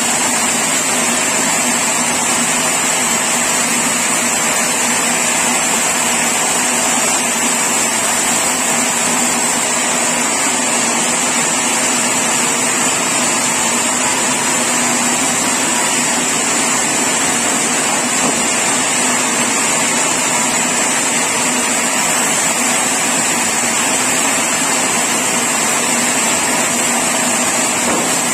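Sawmill saw running steadily, a loud even machine noise with a high whine that does not change.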